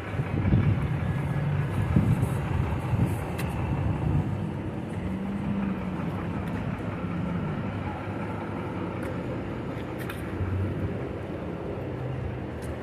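City street traffic: a motor vehicle's engine rumbles close by for the first few seconds, then settles into a steady background hum of traffic.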